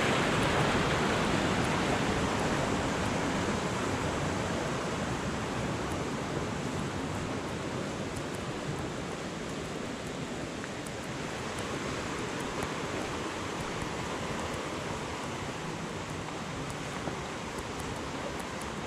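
Rushing water of a small mountain creek, a steady noise that grows fainter over the first half and then holds level.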